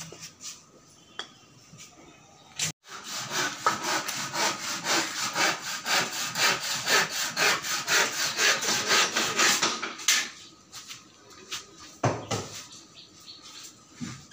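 Saw cutting through wood in quick, steady back-and-forth strokes for about seven seconds, starting a few seconds in and stopping abruptly; a few light knocks before and after.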